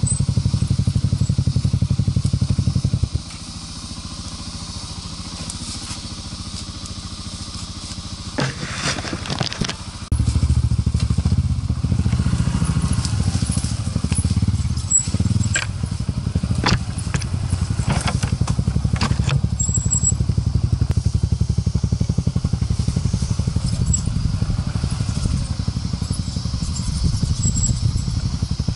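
Off-road motorcycle engine running. It drops much quieter about three seconds in and picks up again about ten seconds in as the bike rides on along a rough dirt trail, with scattered knocks and clicks.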